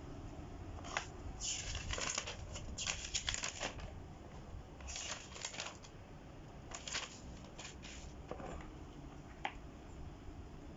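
Irregular rustling and clicking from things being handled, in several short clusters with a single sharp click near the end.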